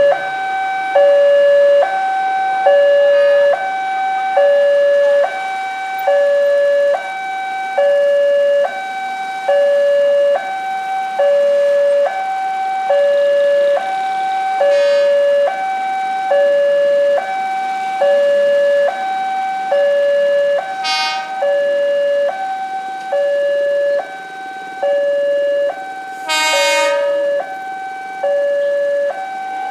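Railway level-crossing warning alarm with its new tone, sounding continuously as two tones that alternate evenly, low then high, over and over. A short horn blast sounds loudly near the end, with fainter shorter ones about halfway and two-thirds of the way through.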